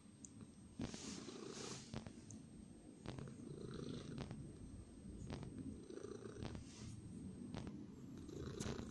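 Domestic cat purring up close, the low purr swelling and easing with each breath about once a second, with a few light clicks.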